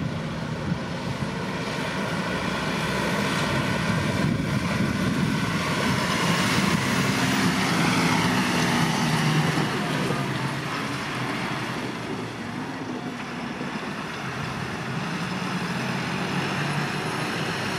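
Deutz-Fahr 6C RV Shift tractor's diesel engine running as the tractor drives. The engine note rises around the middle and settles back again.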